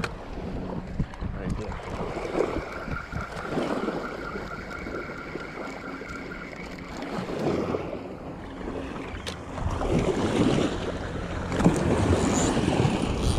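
Wind buffeting the microphone in gusts over small waves washing onto a sandy shore.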